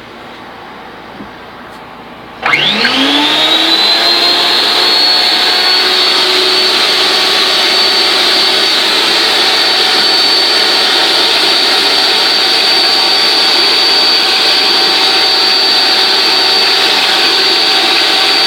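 Electric power pipe threader's motor starts about two and a half seconds in, its whine rising quickly to speed, then runs steadily while a cone reamer deburrs the inside of the spinning pipe end.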